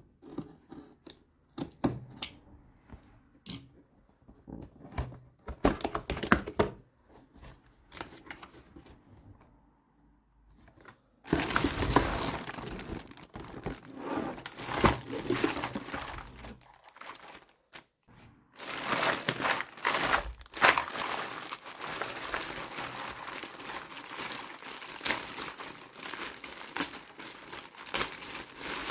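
Plastic toy packaging being unwrapped: scattered light clicks and rustles at first, then continuous crinkling and tearing from about eleven seconds in, with a brief pause partway through.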